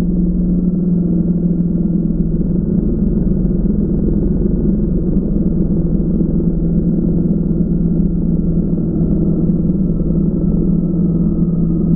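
Multirotor drone's electric motors and propellers humming steadily in flight, heard from on board.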